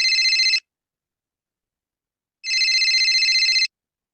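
Telephone ringing with a trilling ring: the tail of one ring just at the start, then a second ring of about a second after a two-second pause. It is a call ringing out before it is answered.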